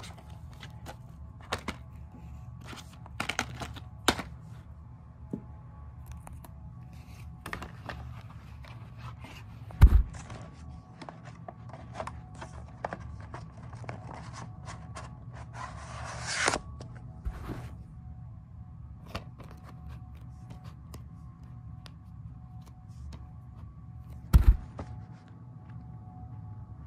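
Handling noise from plastic DVD cases being picked up and moved: scattered clicks and scrapes, a short rustle about two thirds of the way through, and two loud thumps, one about ten seconds in and one near the end, over a steady low hum.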